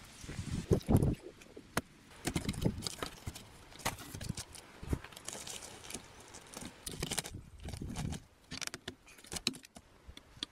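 Irregular wooden knocks, low thumps and rustling from short logs being handled and set in place, with a few louder thumps about a second in.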